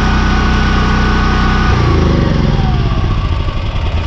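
A-iPower AP5000 portable generator's engine running steadily, then shut off a little under two seconds in, its pitch sliding down and the sound fading as it spins to a stop.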